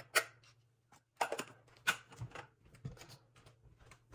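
Water heating in a wide frying pan on the stove, with scattered sharp pops and ticks as small bubbles form and burst, the loudest about a second and two seconds in.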